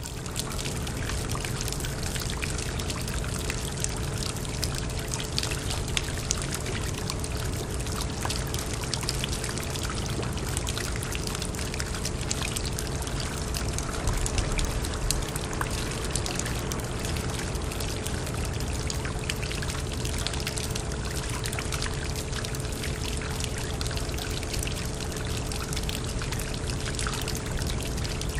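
Water pouring steadily into a drain, a continuous flow with many small splashes ticking through it.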